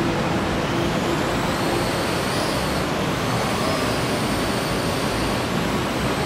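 Parrot AR.Drone 2.0 quadcopter's four rotors whirring steadily in flight.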